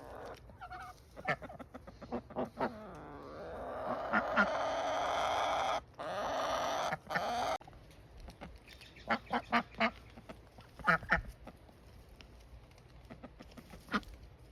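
Backyard ducks and chickens calling: short quacks and clucks scattered throughout. In the middle is a louder, steady, noisy sound lasting about four seconds.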